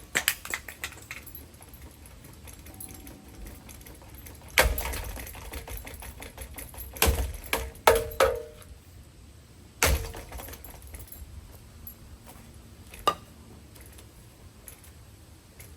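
Metal ceiling fan parts clanking and clattering: about seven sharp knocks spread a few seconds apart, some ringing briefly after the hit.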